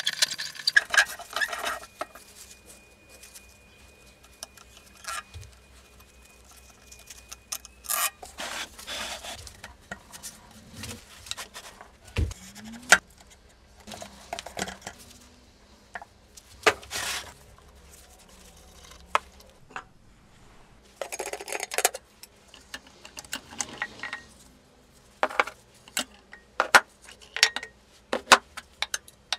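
Metal parts of a Galileo Rockwell hardness tester being dismantled by hand: scattered metal clinks, knocks and scrapes, with a few longer scraping spells, as the handwheel is spun off the threaded elevating screw.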